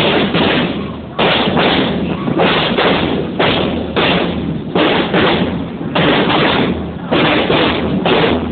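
Marching drums, bass drum and snare, beating a steady parade rhythm with a heavy stroke roughly every second.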